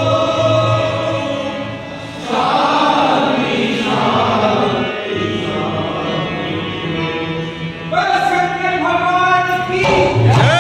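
A group of people singing an aarti, a Hindu devotional hymn, together in sustained lines.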